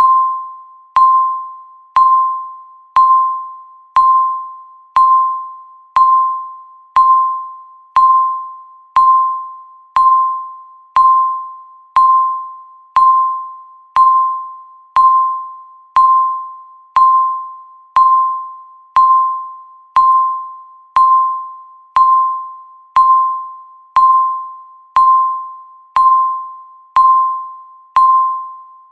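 Countdown timer beep: a single mid-pitched electronic tone sounding once every second, each beep starting sharply and fading away before the next.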